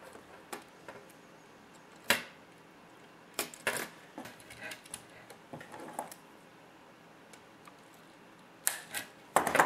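Sharp plastic clicks of an RC truck's steering servo link ball ends being pressed onto ball studs with pliers, mixed with small tool handling. The loudest click comes about two seconds in, a few more follow, and there is a quick cluster near the end.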